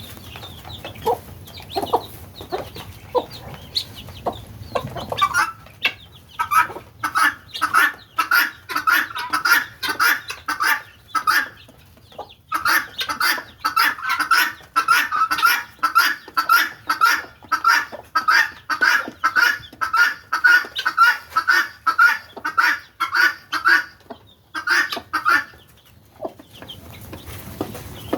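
Helmeted guineafowl calling: a long run of harsh, rapidly repeated notes, about two to three a second, that starts about five seconds in, breaks off briefly midway and dies away near the end. Softer scattered clucks come before it.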